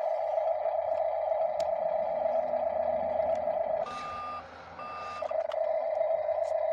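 Toy RC wheel loader's built-in sound effects through its small speaker: a steady buzzing engine hum. About four seconds in, the hum drops out for two reversing beeps of about half a second each, then comes back.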